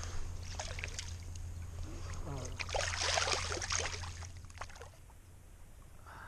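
Water splashing and sloshing in irregular bursts, loudest around the middle, then dropping to a quieter steady hiss near the end.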